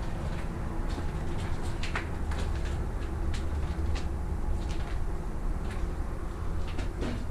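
Footsteps and light scuffs on a debris-strewn floor, a faint click about every half second, over a steady low rumble.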